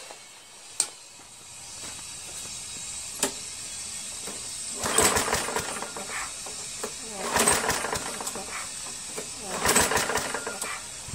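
Tecumseh lawn mower engine running unevenly, swelling into a loud surge about every two and a half seconds, with a couple of sharp clicks early on.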